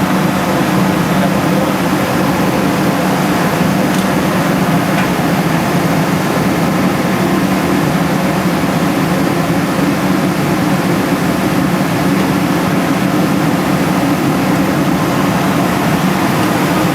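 Large industrial air-moving machine running steadily: a loud, even hum with a strong low tone and a wash of rushing air noise.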